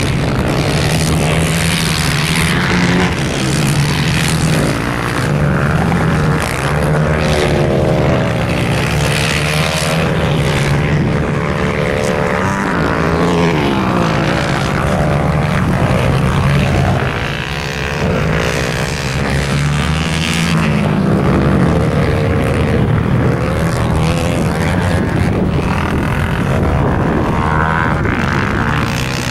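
Motorcycle engines on an ice-racing track, revving up and down as the riders accelerate, shift and slide through turns, with more than one bike running at once.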